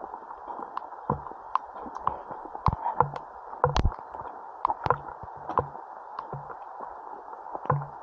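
Footsteps squelching along a wet, muddy forest path, a dull step about every three-quarters of a second, over the steady hiss of rain, with scattered sharp taps.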